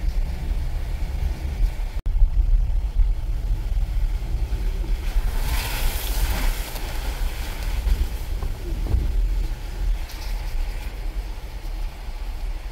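Cabin rumble of a 4x4 driving slowly over a muddy gravel road, with a hissing splash about six seconds in as water and mud spray up onto the windshield.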